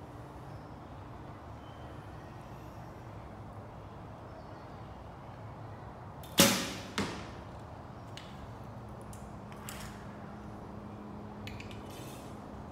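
A recurve bow with Win&Win WIAWIS limbs being shot: one loud, sharp snap of the string on release with a short ringing tail, followed about half a second later by a second, quieter knock. A few faint light clicks follow near the end.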